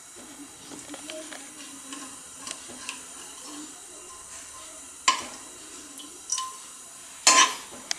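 Ghee melting and sizzling in a hot non-stick kadhai while a metal ladle stirs it and pours it back in a thin stream. A few light clicks of the ladle, then two sharp knocks of the ladle against the pan about five and seven seconds in, the second the loudest.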